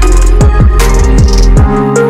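Electronic background music with a heavy beat: deep kick-drum hits that slide down in pitch over a held bass, with cymbal hits on top.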